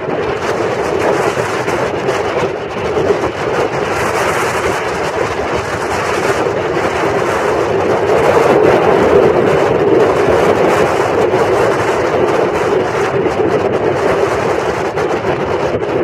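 Gale-force wind buffeting the microphone: a loud, steady rush of noise that swells in a stronger gust about halfway through.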